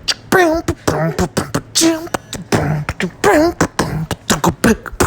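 A person beatboxing: fast rhythmic mouth percussion with wavering pitched vocal sounds woven between the beats.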